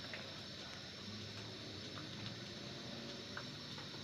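Faint, steady bubbling of a pot of pork and water at a rolling boil, with a few light ticks.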